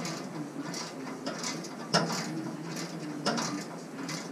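Hand socket ratchet clicking in short irregular strokes as exhaust nuts are tightened, with a few sharper metal knocks.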